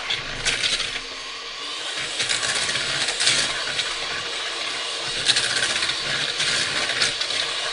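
Electric hand mixer running with its beaters down in a glass bowl, whipping boiled cauliflower and squash into a mash, the metal beaters clinking against the glass now and then.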